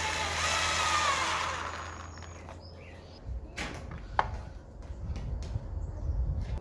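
A power tool running and then dying away over the first couple of seconds, followed by a low rumble and a few sharp knocks of tools or material being handled.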